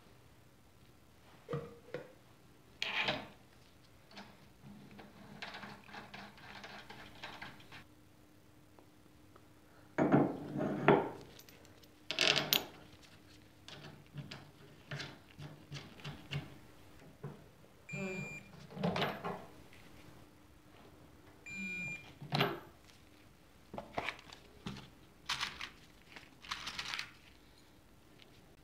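Scattered clicks, clunks and metal knocks from hand tools and small metal parts being handled while the trike's rear axle and brake are reassembled, loudest about ten and twelve seconds in.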